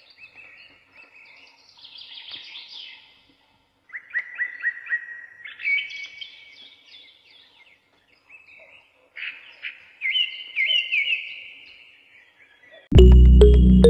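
Small birds chirping and twittering in several quick runs of chirps, with short pauses between them. Loud music with a heavy low beat cuts in about a second before the end.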